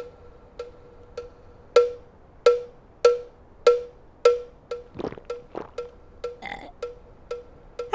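Cartoon soundtrack percussion: a steady beat of short, pitched, hollow knocks, about one every 0.6 seconds, with a few other brief effects mixed in around the middle.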